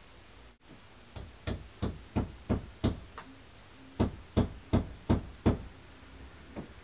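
Hammer blows on a wall: two runs of sharp knocks at about three a second, about seven, then five more after a short pause, with a few fainter knocks near the end.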